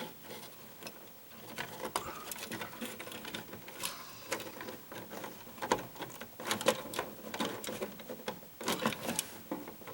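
Irregular clicks and scrapes of stiff electrical wires and a dimmer switch being forced into a crowded wall junction box, with a few louder knocks in the second half.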